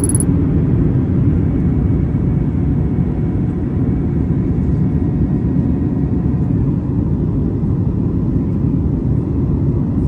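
Cabin noise of a WestJet jet airliner in flight, heard from a window seat: a steady, even low rumble of engines and airflow.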